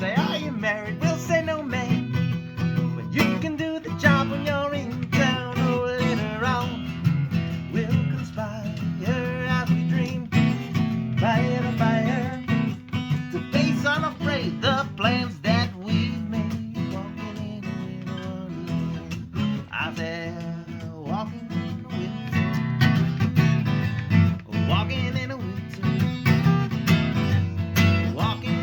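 Acoustic guitar strummed in a steady country-style rhythm, with a wordless, wavering voice rising and falling over the chords.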